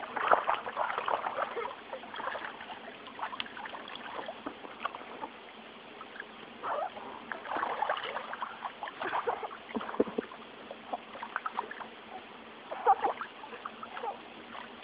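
Water splashing and sloshing in a shallow inflatable kiddie pool as a boy wades and a young raccoon swims. The splashes come in uneven spells: busiest in the first couple of seconds, again in the middle, and once more near the end.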